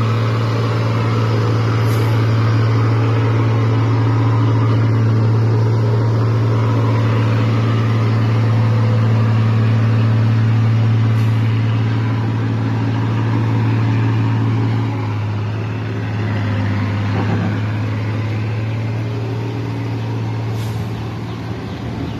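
Isuzu Forward truck's 6BG1 turbo-diesel inline-six running steadily, heavily laden with sugarcane, as the truck drives past and away. The engine note is a strong, steady low drone that eases a little about fifteen seconds in.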